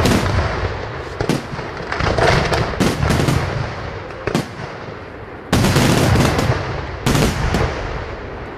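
Aerial fireworks shells from a professional La Rosa Fireworks display bursting in quick succession with sharp bangs. The heaviest blasts come about five and a half seconds in and again about a second later, followed by a fading rumble.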